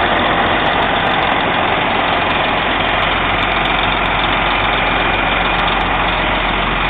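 Heavy truck diesel engine idling steadily, with no change in speed.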